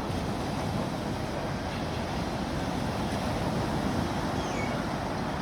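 Sea waves: a steady rush of surf washing in, with no clear breaks between waves.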